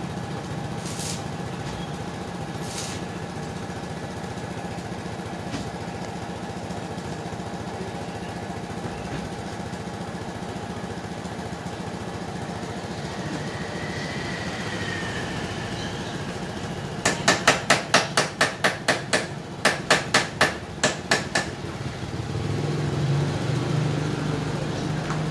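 Hammer blows, about fifteen quick strikes at roughly four a second in two runs a little past the middle, over an engine running steadily. A few single clicks come early.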